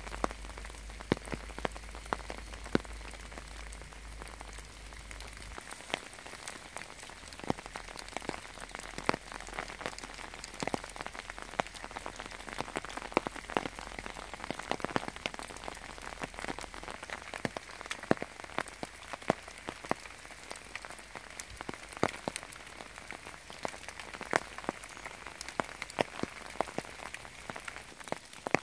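Steady rain falling in forest, a constant hiss, with loud single drops landing sharply and irregularly, often more than once a second.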